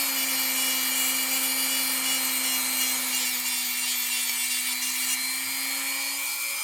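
Dremel rotary tool running at a steady high whine, grinding pitting out of a diecast metal car body, with a gritty rasp over the motor tone. The pitch sags a little right at the start as the tool bites.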